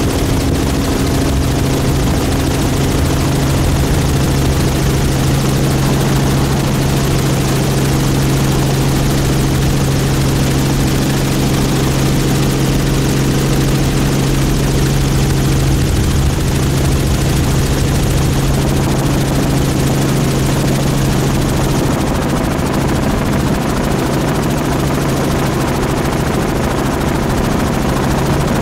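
Helicopter engine and rotor noise heard from aboard the aircraft in flight: a steady drone with hiss.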